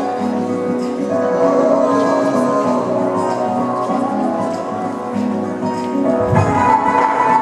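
Bollywood dance music playing, a melody of held notes; about six seconds in a beat comes in and the music gets louder.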